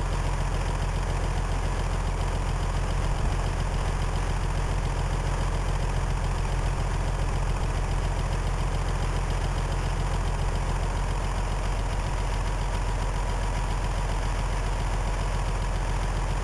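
Case IH 1056 tractor's diesel engine idling steadily.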